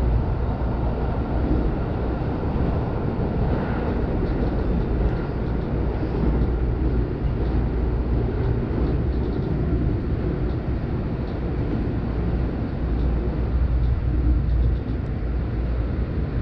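Steady rumble of a JR Joban Line electric commuter train running on its rails, heard from inside the car as it crosses a steel truss bridge.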